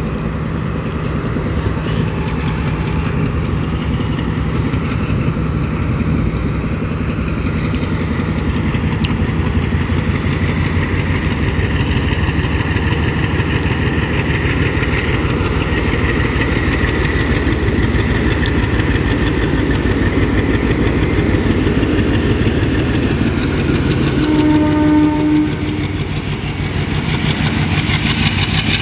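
Sri Lanka Railways M8 class diesel locomotive's engine running loud and steady as it hauls its train away. Near the end there is one short horn note, about a second long.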